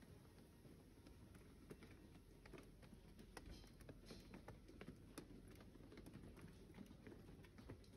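Faint footsteps on a hard platform floor: a quiet, irregular patter of light clicks over a low, steady background hum.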